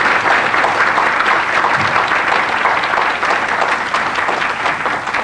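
Audience applauding: many hands clapping in a dense, steady patter that eases off slightly near the end.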